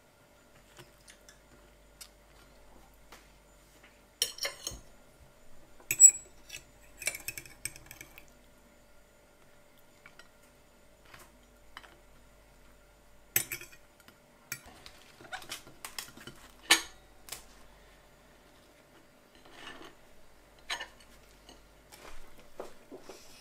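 Metal fork clinking and scraping against plates in scattered short clatters while food is moved from one plate to another. The sharpest clinks come about six seconds in and again around thirteen and seventeen seconds.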